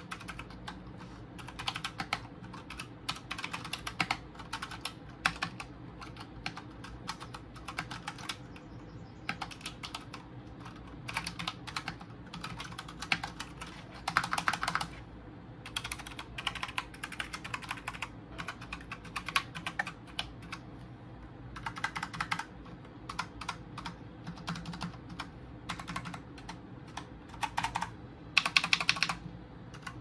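Typing on a Cooler Master CK351 keyboard with optical brown tactile switches: irregular runs of keystroke clicks, with a louder flurry about halfway and another near the end.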